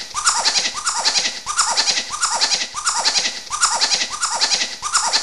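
Laughter: a quick run of cackling "ha-ha" pulses that repeats over and over, about once a second.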